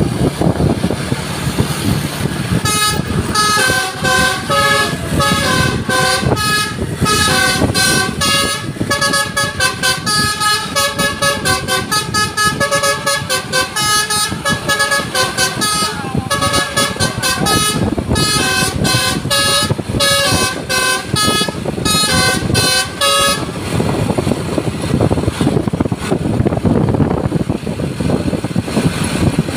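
Basuri telolet multi-tone bus horn playing a fast melody of short tooting notes for about twenty seconds, over steady vehicle noise. The tune stops a few seconds before the end, and the horn starts again at the very end.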